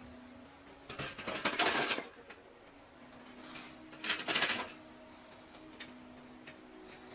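Two bursts of rapid metallic clicking and rattling, about a second in and again about four seconds in, each lasting roughly a second, over a faint steady hum.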